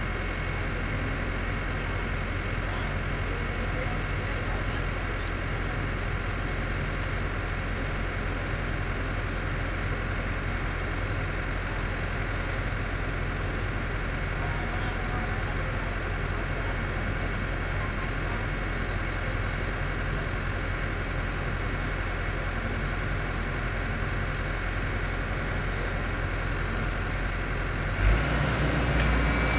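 Caterpillar tracked excavator's diesel engine running steadily at idle with a low, even hum. Near the end the sound abruptly gets louder and a high whine joins it.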